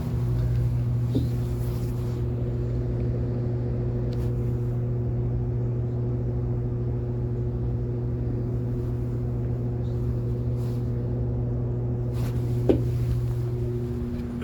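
A steady low hum with a few fainter steady tones above it, and a couple of faint clicks, one about a second in and one near the end.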